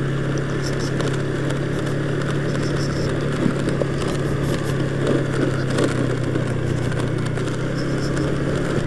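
Automatic scooter's small single-cylinder engine running steadily at low road speed with a constant hum, under a hiss of wind and road noise.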